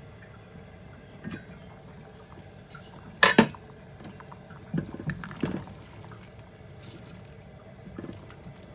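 Water pouring and sloshing in a cooking pot, with one sharp clunk of cookware about three seconds in and a few softer knocks a couple of seconds later.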